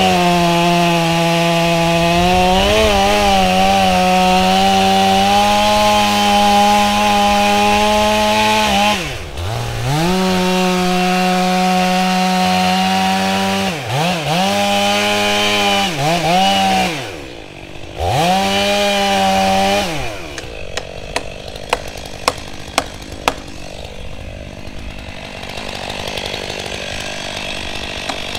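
Chainsaw held at full throttle while cutting into the trunk of a large old cedar, its revs dipping and climbing back several times as it works the cut. About twenty seconds in, the saw drops away and a quieter stretch follows with scattered sharp clicks.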